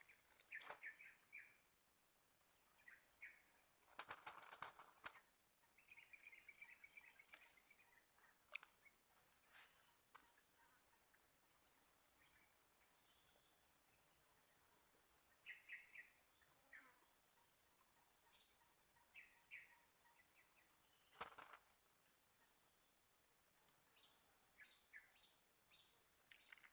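Faint rural ambience: a steady, high-pitched insect drone, with short bird chirps now and then and a few brief clicks.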